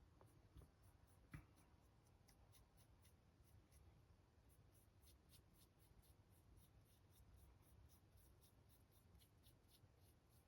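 Faint, quick scratching strokes of a paintbrush on a painted plastic model, a few strokes a second, with two light knocks about half a second and a second and a half in.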